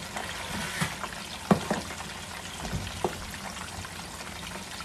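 Pork pieces frying in hot oil in a wok: a steady sizzle with a few sharp pops, the loudest about a second and a half in.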